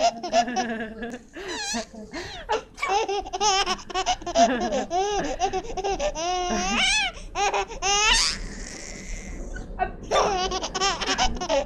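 Baby laughing hard in repeated bursts of high, rising-and-falling giggles and belly laughs, with a breathy stretch about eight seconds in.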